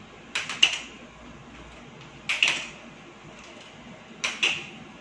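Aluminium walking frame being lifted and set down on a tile floor as the patient steps, a sharp double knock about every two seconds, three times.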